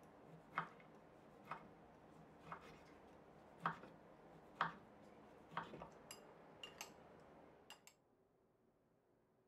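Chef's knife slicing through a seared New York steak, the blade knocking on a wooden cutting board about once a second. A few lighter, sharper clicks follow near the end before the sound stops.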